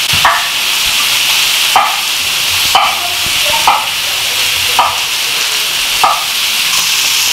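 Steady sizzle of food frying in oil in a wok. A chef's knife cuts through potato onto a wooden cutting board about once a second, six cuts in all.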